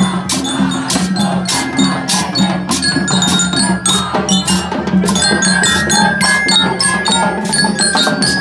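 School marching band's percussion and bell lyres playing together: drums beat a steady rhythm of sharp hits under the ringing, held notes of the bell lyres.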